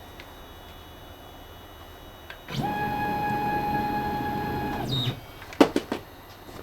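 CNC router's stepper motors driving an axis: a steady electric whine about two and a half seconds long that ramps in and out as the move speeds up and slows down. It is followed by a few sharp clicks and knocks.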